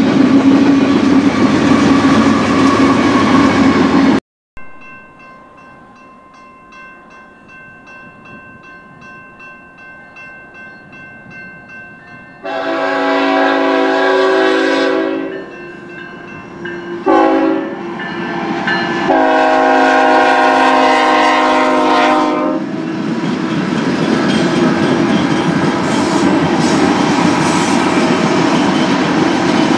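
Freight train wheels rumbling and clacking over rail, cut off abruptly about four seconds in. A grade-crossing bell then rings faintly and steadily until a diesel freight locomotive's air horn sounds a long blast, a short blast and another long blast. The loud rumble of the approaching train follows.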